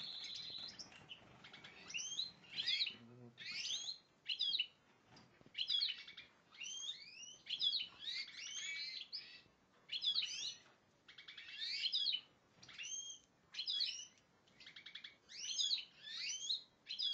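European goldfinch (cardellino) singing in short bursts of quick, twittering high notes, a phrase about every second with brief gaps between. The bird is excited, stirred up by the breeder's hand at the cage.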